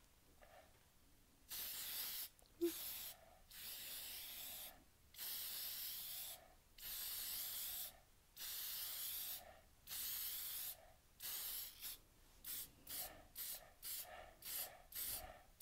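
Aerosol edible glaze spray hissing in repeated bursts about a second long, the bursts turning shorter and quicker near the end, as a fondant-covered cake is glazed. A small knock about two and a half seconds in.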